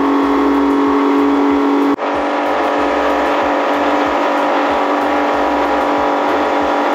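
Honda outboard motor running hard at high speed on a test run after its first 20-hour service, a steady even drone over the rush of water and spray from the wake. The sound dips briefly about two seconds in, then carries on steady.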